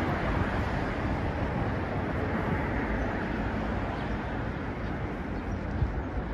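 Steady rumble and hiss of passing vehicles, with one short sharp tap near the end.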